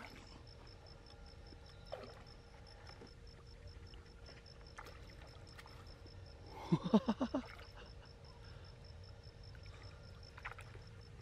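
A hooked crucian carp splashing faintly at the surface beside a cattail bed as it is played on the line, over a steady insect trill. About seven seconds in comes a quick run of about six short, loud calls.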